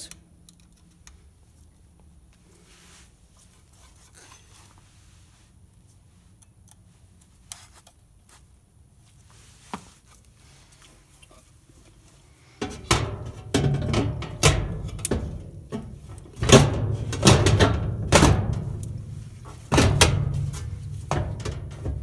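Handling noise at first, with a couple of faint clicks. Then, from about two-thirds of the way in, a run of loud knocks and clunks as a replacement dryer motor on its steel bracket is handled and seated in the dryer's sheet-metal base.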